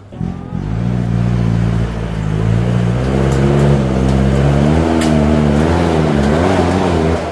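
A Troller 4x4's engine revving under load as it climbs a steep sandy rut, its pitch steady at first, then rising and falling with the throttle in the second half.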